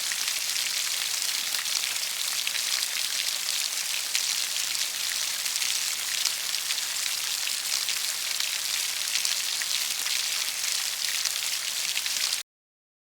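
Steady rainfall, a dense patter of drops with a bright hiss, which cuts off suddenly near the end.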